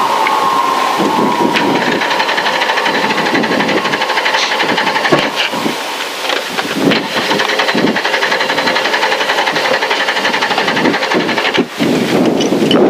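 Inside a Lada 2107 rally car, the engine falters: its tone falls away at the start, then uneven rattling and knocking fills the cabin as the car rolls on. It is the sound of an ignition fault, which the crew traces to a lead that came off the ignition coil.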